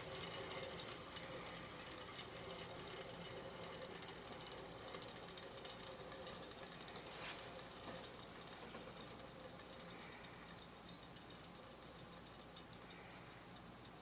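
Shimano BMX freewheel ticking as the rear wheel spins freely, its pawls clicking rapidly, then slowing and fading as the wheel coasts down.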